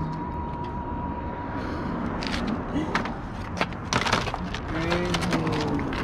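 A series of sharp plastic clicks and knocks as the Ninja 400's fairing pieces are handled and worked off the frame, starting about two seconds in, over a steady background hum.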